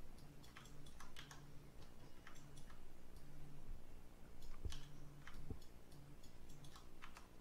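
Faint, irregular clicks of a computer mouse and keyboard, a few to the second, over a low background hum. Two of the clicks, just past halfway, are duller knocks.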